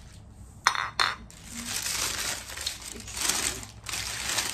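Glass clinks sharply twice about a second in as a glass storage jar with a bamboo lid is handled and set down. Packing paper then crinkles and rustles steadily as a wrapped jar is unwrapped.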